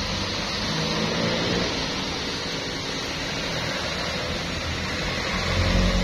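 Steady rush of road traffic with a low engine hum that comes and goes, swelling near the end.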